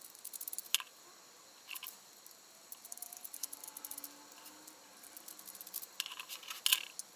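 Small precision screwdriver working tiny screws out of a Sony compact digital camera's metal case: faint scattered ticks and light scrapes, with a few sharper clicks. The loudest clicks come near the end, as the small screws are set down on a wooden tabletop.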